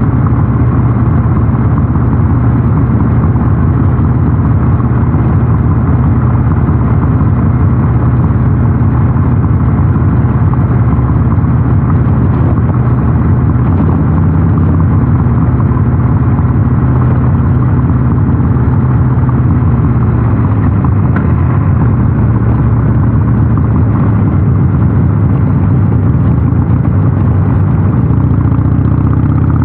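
Harley-Davidson Sportster 883 SuperLow's air-cooled V-twin running steadily while riding, through a North American-spec muffler.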